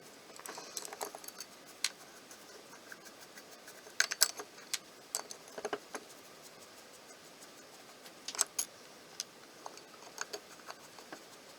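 Light, irregular clicks and clinks of small metal carburetor parts being handled during reassembly of a float bowl with its new gasket. The clicks come in short clusters, the loudest a little after four seconds in and again around eight and a half seconds.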